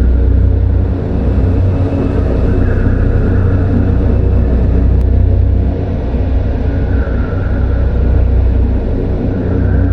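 Horror ambience drone: a loud, deep, steady rumble with a dense dark drone above it, and faint eerie high tones that swell up and fade away twice, in the middle and near the end.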